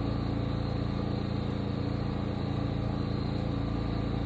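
Engine running steadily at a constant speed, an even, unchanging hum, most likely the sawmill's engine idling between cuts.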